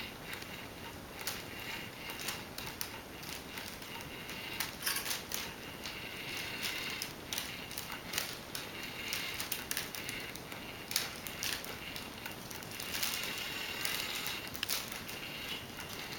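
A cat toy clicking and rattling irregularly over a steady hiss, with denser spells of clatter now and then.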